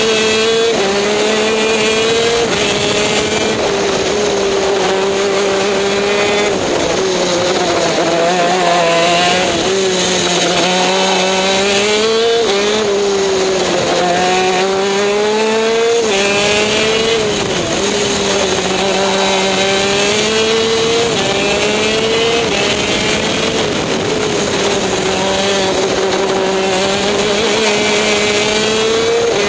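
TM K9C 125 cc two-stroke shifter-kart engine at racing speed. Its note rises as it accelerates and drops sharply several times as the kart shifts gear and slows for corners.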